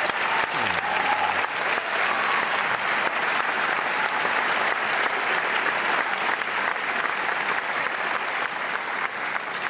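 Audience applauding, a dense steady clapping that holds throughout and eases slightly near the end.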